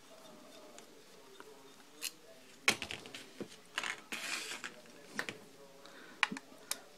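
Screwdriver work on the small screws inside an opened keypad deadbolt: scattered light clicks of metal tool and screws against the lock's plastic and metal parts, with a short scraping of the driver about four seconds in.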